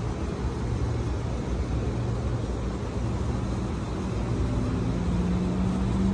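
Steady low motor rumble with a hum, the hum growing louder about five seconds in.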